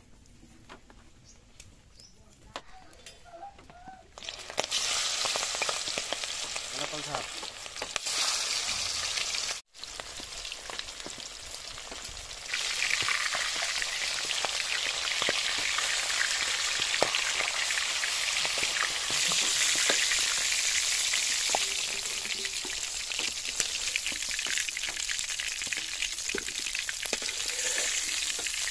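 Fish steaks frying in hot mustard oil in an iron kadai: a loud, steady sizzle starts about four seconds in, breaks off for a moment near ten seconds, then comes back louder, with small clicks of a metal spatula in the pan.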